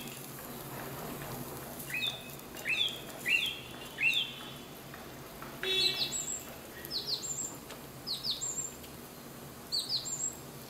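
Birds chirping: a run of four short two-note calls about two seconds in, then quicker, higher chirps through the second half.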